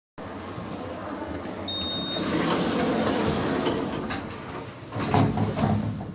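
Lift running, with a short single electronic beep about two seconds in and a louder clatter about five seconds in.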